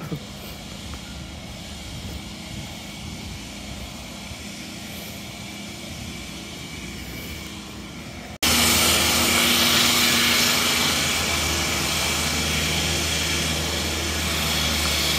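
Steady street background, then about halfway through, at a cut, a much louder steady engine drone of an aircraft overhead, with a low hum under a strong hiss.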